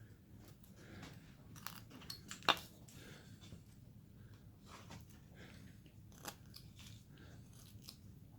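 Faint cuts of a hand carving tool into basswood: small crunching slices and scrapes, with one sharper click about two and a half seconds in.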